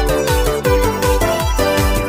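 Background music with a quick, steady beat and a melody over it.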